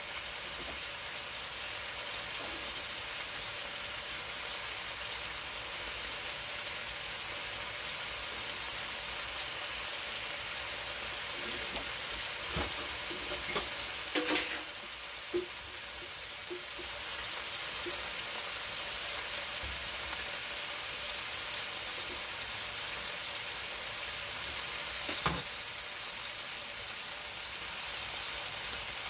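Steaks and sliced onions frying in oil in a deep skillet, a steady sizzle throughout. A few sharp clicks or knocks break in about halfway through and once near the end.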